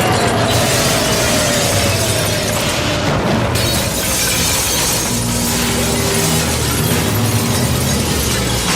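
Superhero sonic-scream sound effect: Black Canary's canary cry, a continuous loud screeching wash with glass shattering under it, with a falling tone at the start. It plays over dramatic score.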